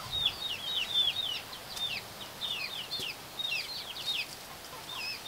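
Young chickens (pullets) peeping over and over: many short, high chirps that drop in pitch, several a second, from a number of birds at once.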